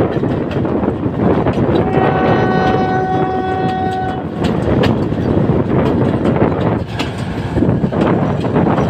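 Train running with a loud, steady rumble and rail clatter. About two seconds in, the train's horn sounds one steady blast of a little over two seconds.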